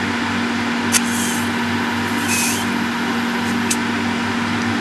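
Extraction fan running with a steady hum. Over it come two sharp clicks, about a second in and near the end, and two brief high fizzes from the electrified carbon fibre brush on the stainless steel weld: the tiny hydrogen pops of electropolishing.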